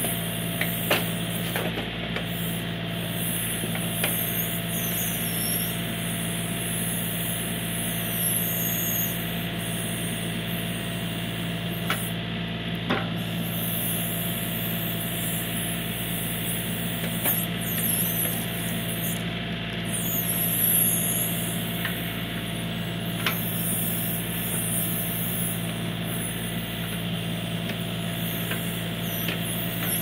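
John Deere 3032E compact tractor's three-cylinder diesel engine running at a steady speed while the 370B backhoe digs out a stump, with a few sharp knocks scattered through.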